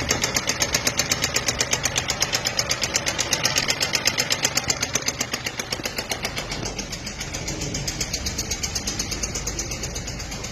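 Renault Logan three-cylinder engine running with a fast, even ticking of about eight ticks a second, the engine noise that the owner wants identified. The ticking grows fainter from about six seconds in.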